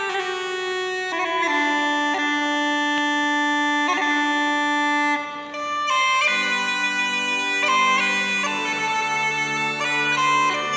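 Uilleann pipes in C playing a slow air, with long held notes. The sound breaks briefly about five and a half seconds in, and lower notes then sound beneath the melody.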